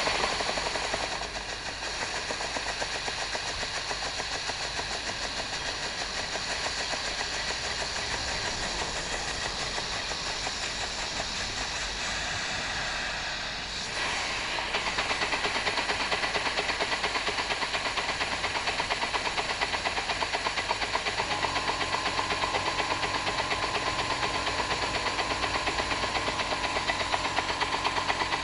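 Stuart Turner No1 vertical single-cylinder steam engine running on compressed air: a rapid, even chuffing of exhaust beats with a steady air hiss. About halfway through the running falls off briefly and picks up again, a little louder, as the flywheel is turned by hand.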